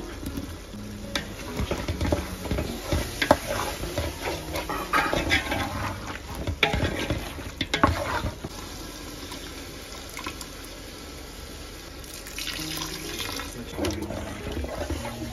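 Wet ingredients splashing into a pot of meat and potato masala and being stirred, with a metal spoon knocking and scraping against the pot, busiest over the first half. Faint background music.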